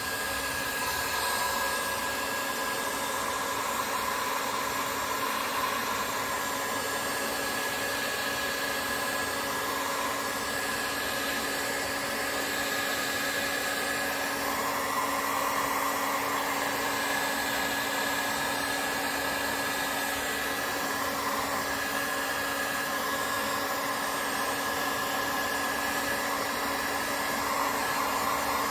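Electric heat gun running steadily, a rush of blown air over a steady motor hum, as it shrinks heat-shrink tubing over soldered wire joints.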